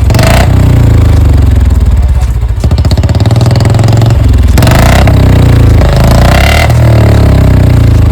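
Royal Enfield Bullet 350's single-cylinder engine running loud through an aftermarket 'Chhota Punjab' silencer, a steady thumping idle with the throttle blipped three times.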